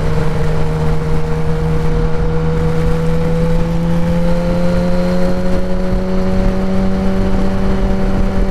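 Kawasaki ZX-10R inline-four with an aftermarket Graves race exhaust running at a steady freeway cruise, its engine tone creeping slightly higher in the second half. Loud wind and wet-road noise run under it.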